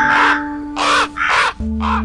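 Crow cawing, four harsh caws in a row, over steady background music.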